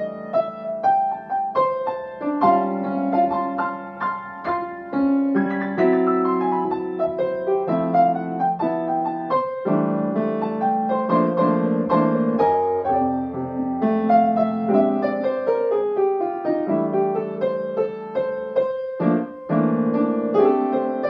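A grand piano played solo, with a melody over chords in both hands.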